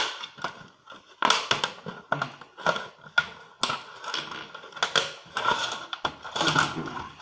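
Plastic casing of a set-top box recorder being pried open: irregular clicks, cracks and scraping as the snap-fit case is worked at.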